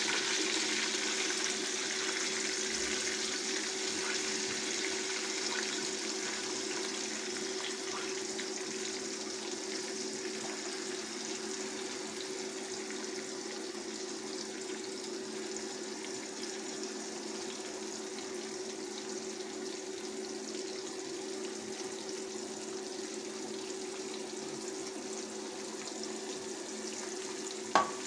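Sliced onions sizzling in hot cooking oil in an aluminium pot, the sizzle slowly easing off as they fry, over a steady low hum. A single sharp knock near the end.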